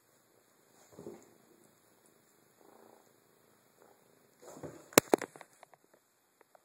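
Black kitten purring close up, in pulses a second or two apart. About five seconds in come two sharp knocks, the loudest sounds.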